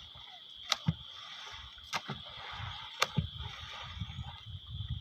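Small boat being paddled on the water: sharp wooden knocks about once a second, with low thuds and splashes between them. A steady high insect drone runs underneath.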